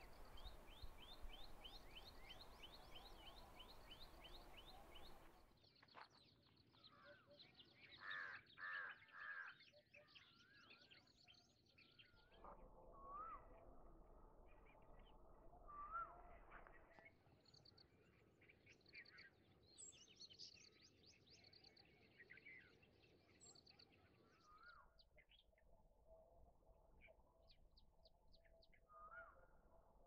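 Faint wild birdsong, several birds chirping and calling. It opens with a fast run of high repeated chirps, and three louder calls come in quick succession about eight seconds in. The background changes abruptly several times between short recordings.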